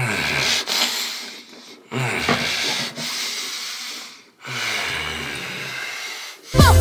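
Three long rubbing, scrubbing strokes close to the microphone, each lasting about two seconds and starting with a low thud. Loud music with a heavy bass starts just before the end.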